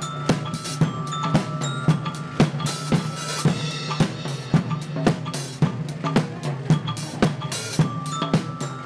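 Percussion music: a drum kit with snare and bass drum keeping a steady beat, with short ringing pitched tones over it.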